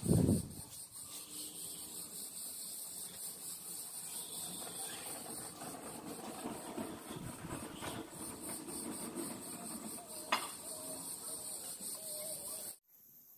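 Cicadas chirring in a steady, rapidly pulsing high-pitched drone that cuts off suddenly near the end. A brief low thump at the very start, and a small click about ten seconds in.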